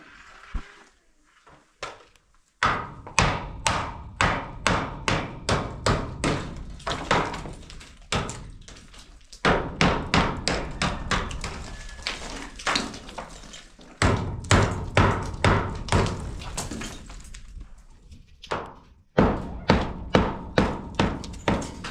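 Hammer striking the edge of a cinder-block door opening: sharp, repeated blows at about two a second. They start a couple of seconds in and come in runs broken by short pauses.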